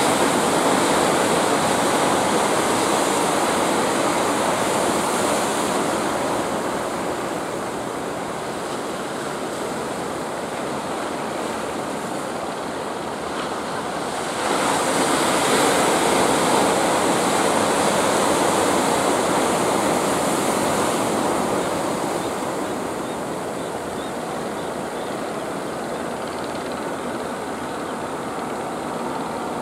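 Waves and surf washing in a steady rush, swelling louder at the start and again about halfway through.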